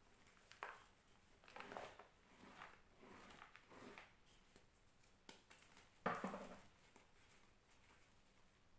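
Reformed gym chalk being crushed: a series of soft, crumbly crunches, the loudest about six seconds in.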